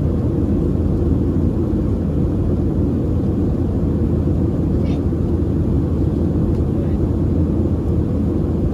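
Steady cabin roar of a Boeing 737-700 in flight, its CFM56 jet engines and the airflow heard from inside the cabin, deep and even in level.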